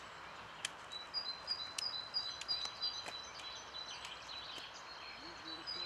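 A small songbird singing series of short, high, repeated notes that alternate between two pitches, over a steady outdoor hiss. A few sharp clicks sound among them.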